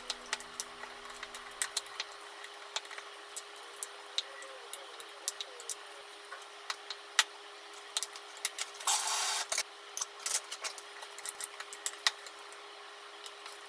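Wooden chopsticks clicking and scraping against a ceramic bowl as a salad is tossed: irregular light clicks throughout, with a short rustling burst about nine seconds in. A faint steady hum sits underneath.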